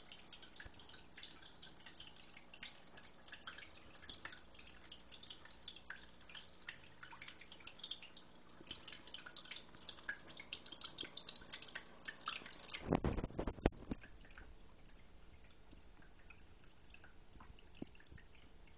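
Small terrarium waterfall trickling and dripping over rock, a steady patter of little splashes. About thirteen seconds in there are a few heavy thumps, and after them the trickle is fainter.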